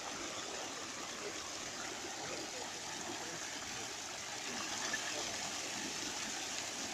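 Fountain water jets spraying and splashing, a steady even hiss.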